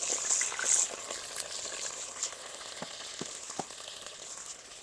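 Chicken pieces frying in hot ghee in a clay karahi: a steady high sizzle that flares up as pieces drop in near the start, with a few sharp pops later on.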